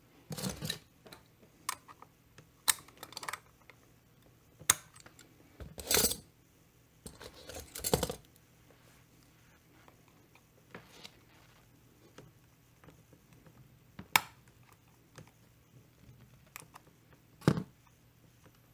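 Scattered sharp metal clicks and clatter of needle-nose pliers and small parts during hand work at a chainsaw's clutch drum hub, with two longer rattles about six and eight seconds in.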